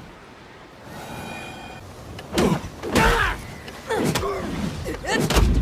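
Bo staff combat sound effects: four sharp strikes in the second half, each with a falling sweep in pitch, two of them landing with a heavy thump.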